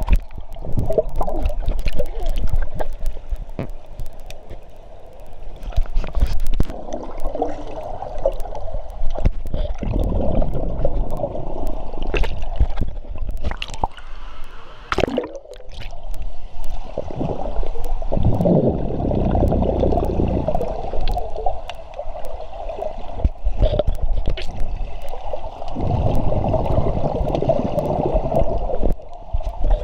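Pool water gurgling and sloshing, heard muffled through a waterproof camera that dips in and out of the water, with many small clicks and knocks from bubbles and splashes. The rushing swells and fades several times.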